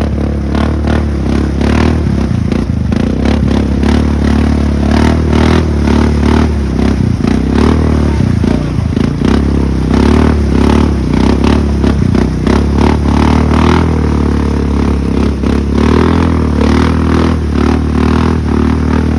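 Suzuki KingQuad 750 ATV's single-cylinder engine revving hard and unevenly under load while the quad is stuck deep in thick mud, with the tyres churning and slapping mud throughout.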